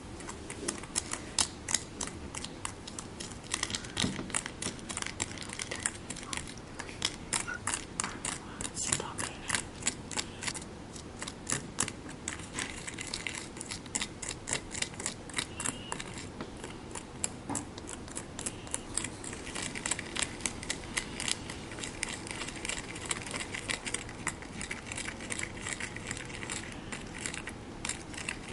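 Small plastic utensils and trays of a Konapun DIY candy kit being handled and stirred: quick, irregular clicks, taps and scrapes that go on throughout.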